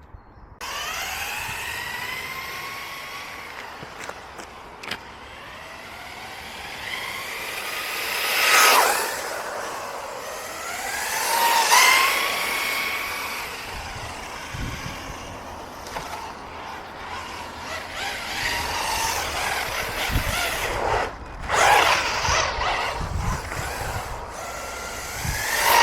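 Electric RC car being driven at speed, its motor whine rising and falling in pitch with each burst of throttle. It is loudest as the car passes close by, about 9, 12, 21 and 26 seconds in.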